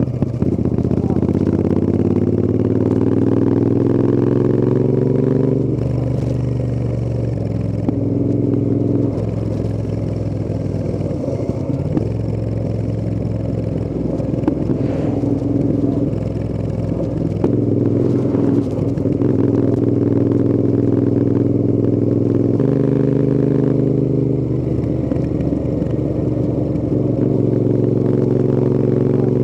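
Royal Enfield Interceptor 650's parallel-twin engine pulling through the gears on a ride, its pitch rising under acceleration and dropping sharply at each of several gear changes, with a stretch of steady cruising in the middle.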